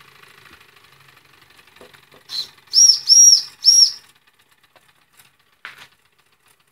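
Steam whistle on the boiler of a Jensen #65 live steam engine, blown in four high, clear toots about halfway through: one short, then three longer ones in quick succession. Before them the small engine runs faintly and evenly.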